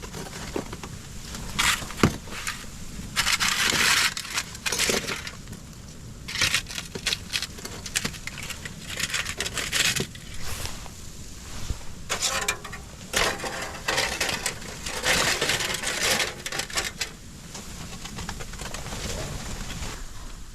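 A dog chewing and cracking a stick: irregular crunching and splintering bursts with short pauses between.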